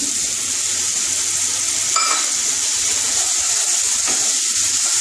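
Hot oil and spice masala sizzling in a nonstick kadai as water is poured in, with a wooden spatula stirring through it. A single knock comes about two seconds in.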